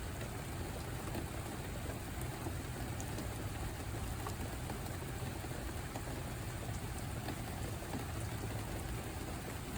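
Steady rain falling, with scattered individual drops ticking and a low rumble underneath.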